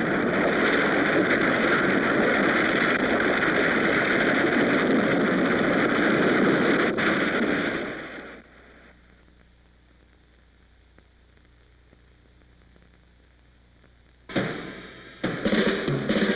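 A loud, even rushing noise for about eight seconds that fades away, then near silence. Near the end comes a sudden loud hit, and music with drums starts.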